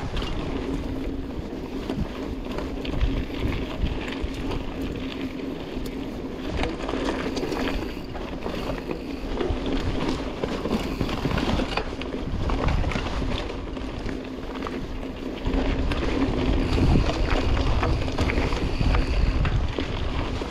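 Dartmoor Primal mountain bike ridden down a dirt singletrack: tyres rolling over the ground with the chain and frame rattling over roots and bumps, under a steady low hum. Wind buffets the microphone throughout and grows heavier about three-quarters of the way in.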